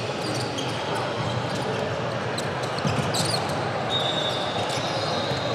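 Basketball game play on a hardwood gym floor: the ball bounces as it is dribbled, sneakers squeak briefly a couple of times, and a steady din of spectator voices echoes through the hall.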